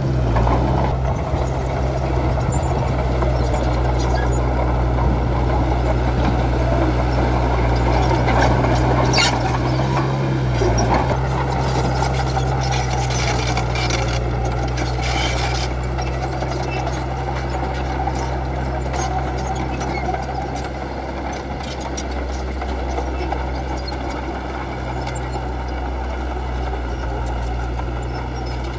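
D30H bulldozer's diesel engine running steadily while the machine works, with a few clanks about a third to halfway through.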